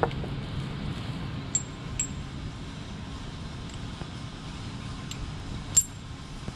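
Metal climbing hardware on a rope clinking as it is handled: several sharp, ringing metallic clinks, the loudest near the end, over a steady low rumble.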